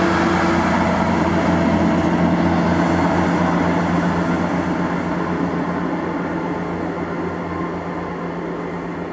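ScotRail Class 158 diesel multiple unit moving off along the platform. Its underfloor diesel engines give a steady low drone that fades gradually as the train draws away.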